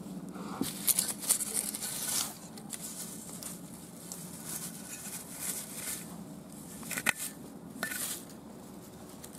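Dry grass and leaf litter rustling and crackling in short, irregular bursts, loudest about a second in and again around seven and eight seconds in, over a faint steady low hum.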